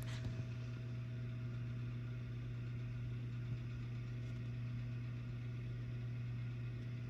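A steady low mechanical hum with a fainter, higher steady tone above it, unchanging throughout.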